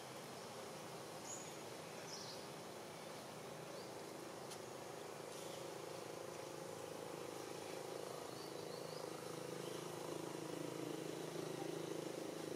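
Quiet outdoor ambience: a steady hiss with a few faint, short high chirps, and a low engine hum that grows slowly louder over the second half.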